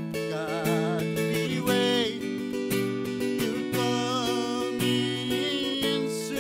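Acoustic guitar strummed in steady chords, with a man singing a melody over it. His held notes have a wavering vibrato.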